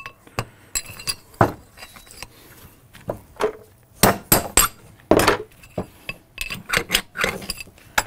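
Hammer striking a punch set against the bearing spacer inside a dirt bike's cast wheel hub, driving the spacer and wheel bearing out: a dozen or so sharp taps at an uneven pace, some in quick clusters.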